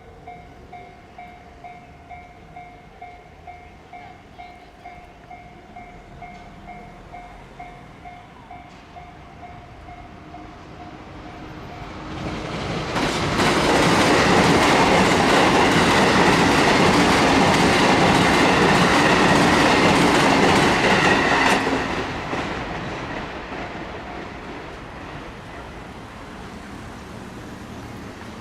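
Japanese level-crossing warning bell ringing about twice a second. About twelve seconds in, a train passes over the crossing, loud for about nine seconds with clattering wheels, and then fades away.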